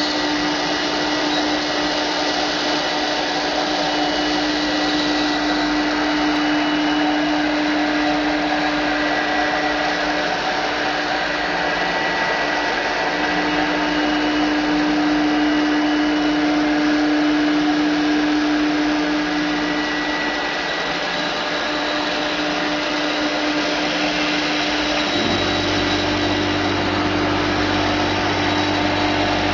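CNC router spindle running while a 4 mm end mill cuts through aluminium in a final cut-out pass at 70 mm/s: a steady tone over a continuous cutting hiss. About 25 seconds in, a deeper hum joins in.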